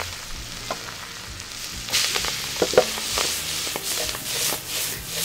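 Chopped onions and herbs sizzling as they fry in melted butter in a frying pan. The sizzle gets louder about two seconds in, with a few sharp clicks shortly after.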